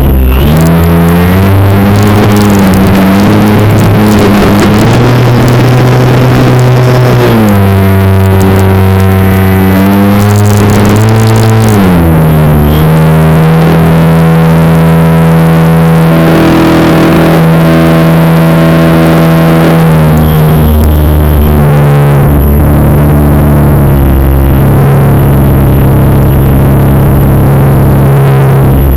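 RC plane's motor running loud, heard from a camera mounted inside the plane. Its pitch holds steady for a few seconds at a time, then steps up or down as the throttle changes, over a rushing noise.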